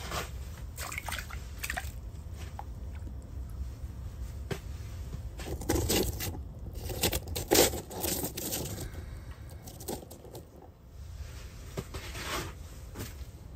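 Rustling and scraping handling noises, loudest in a cluster about six to eight seconds in, over a steady low rumble.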